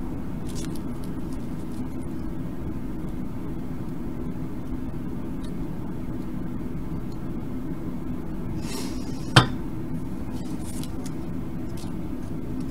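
A steady low background hum with faint ticks from small parts being handled, and one sharp clink about nine seconds in.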